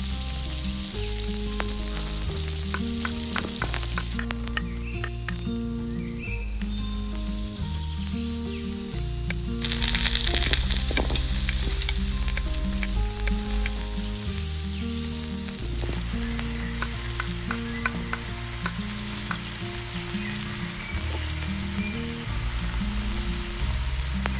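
Food frying in hot oil in a miniature pan, a steady sizzle with light clicks of a utensil stirring. The sizzle grows louder about ten seconds in and eases off about six seconds later.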